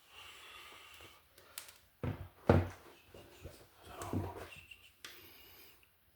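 Handling noises: a few sharp knocks and clicks, the loudest about two and a half seconds in and another near four seconds, with soft rustling and scraping in between.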